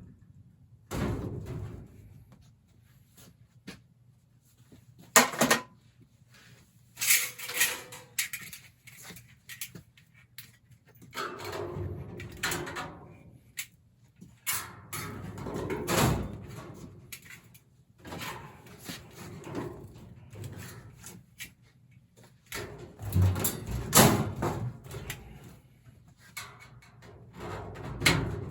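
Irregular knocks, clatters and scraping from hands-on installation work: metal parts and tools being handled and set down, with quieter gaps between.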